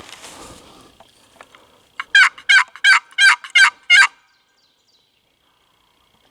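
Six loud turkey yelps in a quick, even run, about a third of a second apart, from a hunter's hand turkey call.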